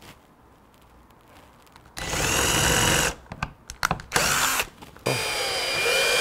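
Cordless drill spinning a self-centering (center) drill bit through a hinge's screw holes into wood, boring pilot holes. It runs for about a second, gives a few short bursts, then makes a longer run that speeds up and slows down near the end.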